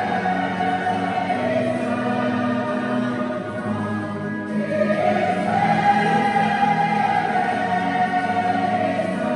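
Choir of mixed voices singing slow, sustained chords in the manner of a hymn, with a short break between phrases about four and a half seconds in.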